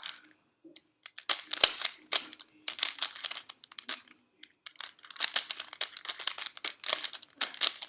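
Plastic Rubik's cube being turned rapidly by hand: quick runs of clicking and clacking as the layers snap round, in three bursts with short pauses between.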